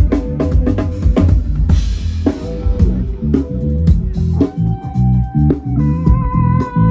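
A live rock band playing through PA speakers during a soundcheck: a drum kit with a heavy kick and bass guitar keep a steady groove, with a cymbal wash about two seconds in. Held guitar notes come in from about four and a half seconds.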